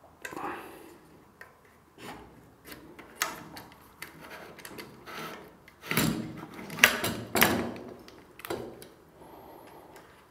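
Clicks and knocks of a camera and mounting clamp being handled and re-seated on a MōVI Pro gimbal, with a quick cluster of louder knocks about six to eight seconds in.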